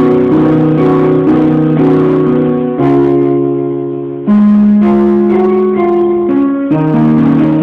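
Electronic keyboard with a piano voice, playing held chords that change every second or two.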